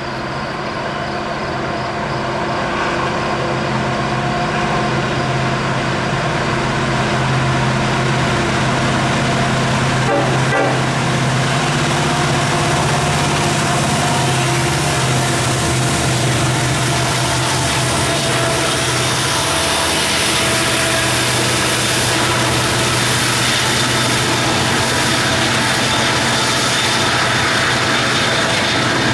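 Norfolk Southern freight train's diesel locomotives running under load, growing louder over the first several seconds and then holding steady. The low engine note shifts about two-thirds of the way in, and the double-stack intermodal cars roll past with wheel and rail noise.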